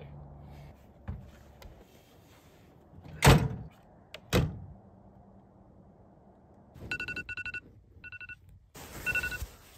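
Two slams about a second apart as the back of a pickup truck's canopy is shut. Near the end, a phone alarm beeps in short repeated groups.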